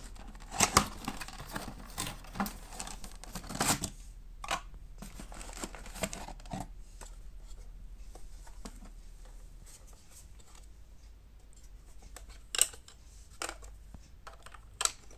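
Cardboard packaging being opened and handled by hand: dense scraping, rustling and sharp clicks of cardboard in the first few seconds, then sparser taps and clicks as the boxes and the plastic cat coin bank are handled, with a couple of louder clicks near the end.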